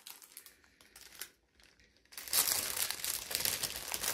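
Clear plastic bag crinkling as it is handled and pulled open around a bundle of rib-knit cuffs: faint rustling at first, then steady, louder crinkling from about two seconds in.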